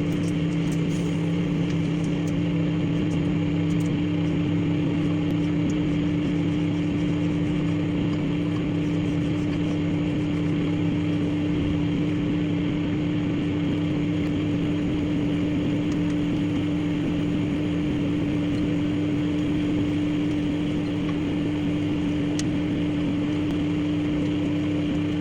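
Microwave oven running: a steady low electrical hum over an even hiss, unchanging throughout.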